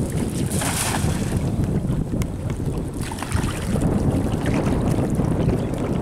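Wind buffeting the microphone in a steady low rumble. About a second in there is a brief splashing hiss as a thrown cast net lands on the river.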